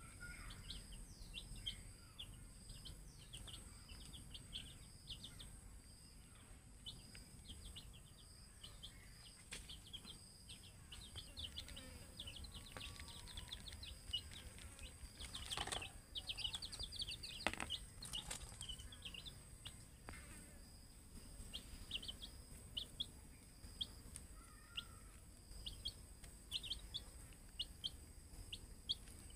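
Young chicks peeping: a steady stream of short, high, falling cheeps from several birds, busiest around the middle, with a couple of sharp knocks about halfway through.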